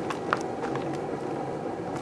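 Microwave oven running with a steady hum while heating a sealed plastic bottle of bubble bath, with scattered sharp ticks and crackles over it. The loudest tick comes about a third of a second in.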